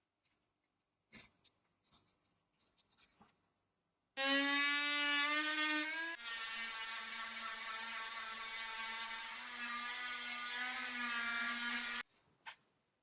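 A small electric power tool's motor whirring at a steady high pitch. It starts abruptly about four seconds in, drops to a lower pitch about two seconds later and runs on steadily, then cuts off suddenly near the end.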